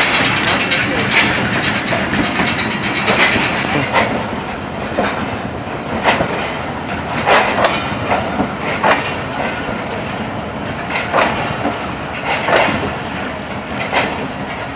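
Mianwali Express passenger train at the platform: a steady rail rumble, with sharp metallic clanks every second or so at uneven spacing.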